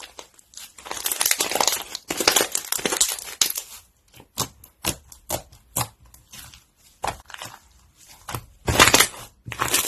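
Crunchy slime being worked by hand, crackling densely for a couple of seconds, then scattered sharp pops and crackles, with a louder crunch near the end.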